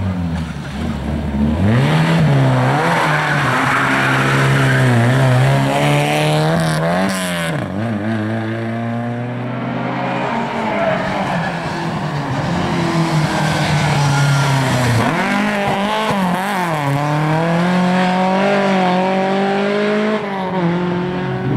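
Rally car engines revving hard as cars come through a corner one after another, the pitch climbing and dropping again and again with throttle and gear changes, with some tyre squeal.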